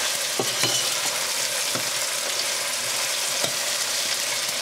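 Potatoes and pork ribs sizzling in oil in a stainless-steel pot, a steady hiss. A spoon stirring them knocks lightly against the pot a few times.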